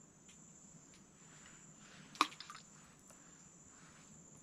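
Steady, thin, high insect trill, like a cricket, from the swamp. A single sharp click comes a little over two seconds in, followed by a few faint ticks, and there is some soft faint rustling.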